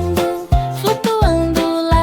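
Children's song music: a gliding melody over a bass line with a regular beat.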